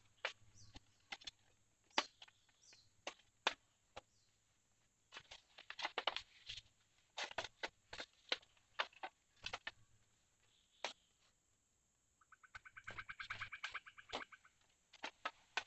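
Irregular sharp knocks and taps of bamboo being worked by hand. Near the end comes a rapid chattering animal call lasting about two seconds.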